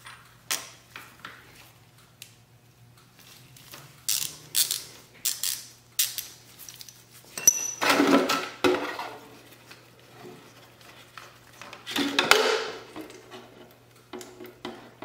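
Metal hand tools clicking and clinking as a socket on an extension loosens the oil drain plug on a KTM 500 EXC-F engine, with two louder clattering scrapes about 8 and 12 seconds in.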